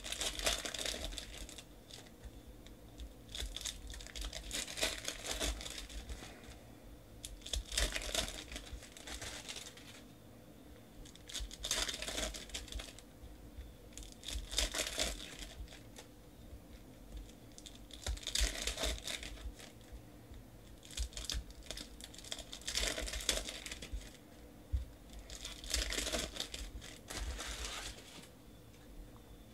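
Foil trading-card packs being torn open and crinkled by hand: about eight bursts of crinkling and tearing, every three to four seconds.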